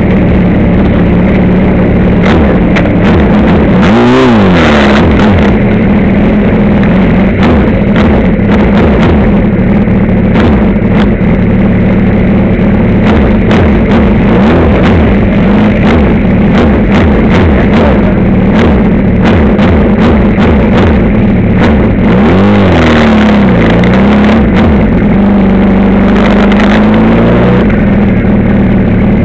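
Motorcycle engine running, recorded close up from the rider's own bike with loud wind noise on the microphone. The engine note drops and climbs back twice, about four seconds in and again just after twenty-two seconds.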